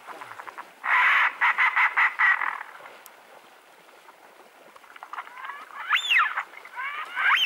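Wild ducks calling on the water: a quick run of about eight harsh quacks, starting about a second in, and near the end two rising-and-falling whistled calls.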